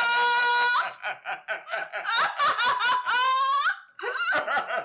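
A man and a woman laughing hard together in quick bursts, with a held high-pitched squeal at the start and another rising squeal about three seconds in.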